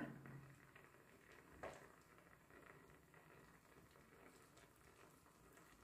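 Near silence: faint room tone with one soft click about a second and a half in.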